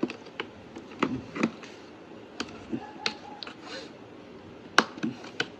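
Irregular sharp plastic clicks and taps as switches are worked out of a Honda Dio scooter's plastic dashboard panel, with a louder click near the end.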